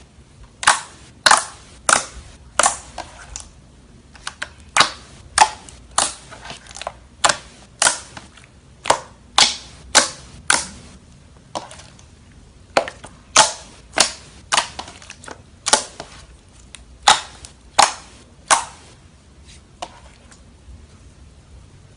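Slime being squeezed and pressed by hand, giving a string of sharp air-bubble pops about two a second. The pops die away a few seconds before the end.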